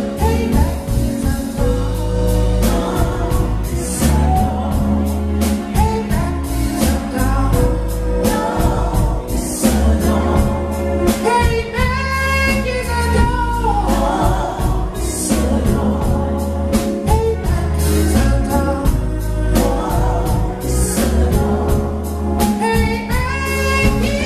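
Live band music: a man singing lead over keyboard, electric bass and drums, with long held, wavering sung notes and a cymbal crash every five or six seconds.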